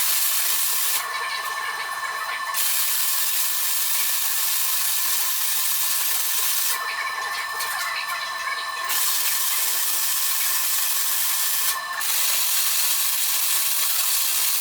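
MIG welding arc from a Lincoln Power MIG 210 MP: a steady sizzling hiss as a bead is laid, its high end thinning briefly a few times.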